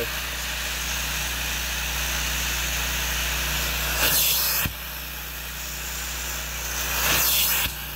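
Carpet extractor's hand spotting tool sucking solution out of carpet: a steady rushing hiss over a low machine hum. The hiss grows louder twice, about four and seven seconds in, and each time drops back suddenly.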